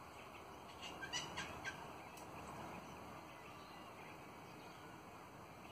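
Twenty-eight parrots (Australian ringnecks) feeding, giving a few short, quiet chattering calls close together about a second in.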